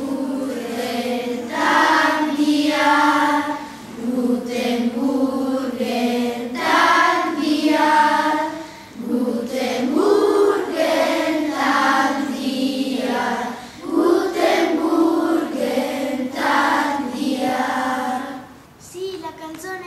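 A group of children singing together in unison, phrases of long held notes with short breaks for breath between them.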